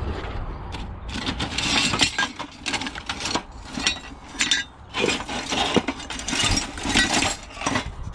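Small pieces of metal scrap clinking and rattling together as a bucket of mixed scrap is rummaged through by hand, in two busy spells of clatter with a short lull between.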